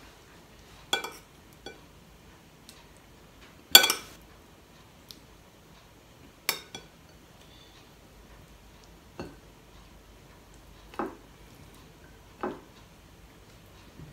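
Metal spoon clinking and tapping against ceramic plates and bowls: about seven separate clinks with quiet between, the loudest about four seconds in.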